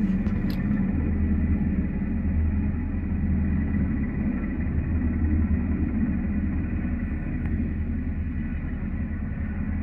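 UH-60 Black Hawk helicopter running on the ground: the steady whine of its twin T700 turboshaft engines over the rapid low beat of the turning rotor.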